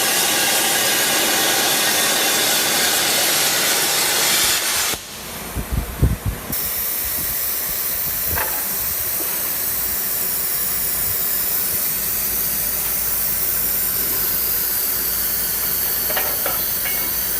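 CNC plasma cutter's torch hissing steadily as it cuts. The loud hiss cuts off about five seconds in, a few low thumps follow, then a quieter steady hiss carries on.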